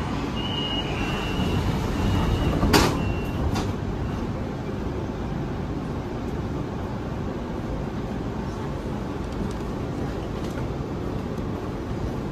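Beijing Subway Line 10 car doors closing: the door warning beeps repeat for about three seconds, the sliding doors bang shut near the end of the beeps, and the train then runs with a steady noise.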